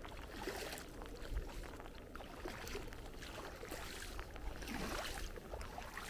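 Bare feet wading through ankle-deep seawater on a tidal flat, a splash with each step about once a second, over a low wind rumble on the microphone.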